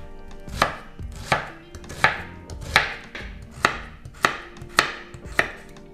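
Chef's knife chopping onion, then carrot, on a bamboo cutting board: a steady series of sharp knocks of the blade on the wood, about one every two-thirds of a second.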